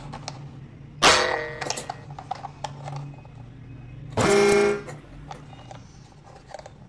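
A bright plucked chord rings out about a second in and fades, then a short, steady, horn-like toot sounds just after four seconds, with light plastic clicks from a toy train being turned over in the hands.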